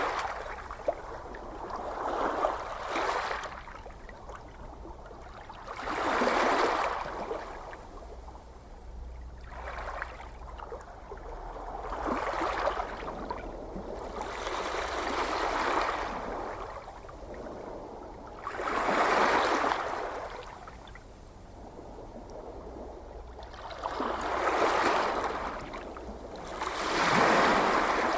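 Gentle ocean waves washing onto the shore, each one swelling and fading over a second or two, about every three to six seconds.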